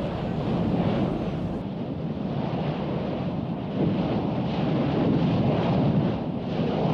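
Lava fountains spattering from an erupting fissure on Eyjafjallajökull volcano, heard as a dense, steady low rumble, with wind buffeting the microphone.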